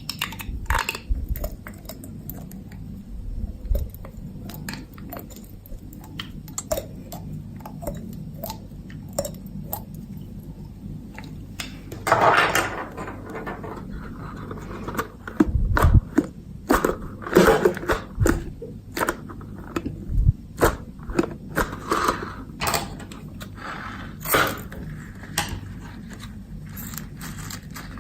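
Clear slime being mixed and squished by hand: irregular sticky clicks, crackles and scrapes, with louder squelching bursts about twelve seconds in and again through the middle and latter part.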